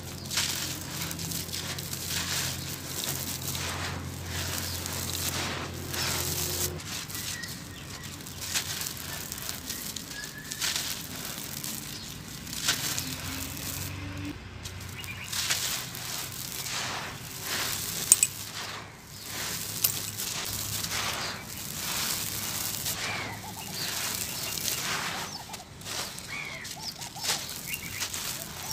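Hands crushing and crumbling lumps of dry packed sand: an irregular run of gritty crunches and crackles as the lumps break and grit trickles down, with one sharp crack about 18 seconds in. A low hum sits underneath for the first seven seconds or so.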